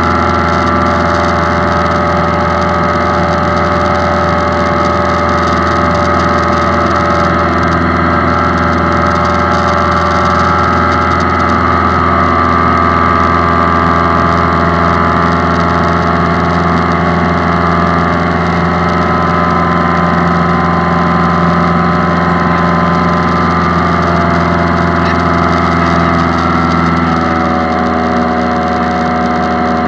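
Single-engine light aircraft's piston engine and propeller running steadily in flight, heard inside the cabin as a constant drone. Near the end the engine note changes slightly.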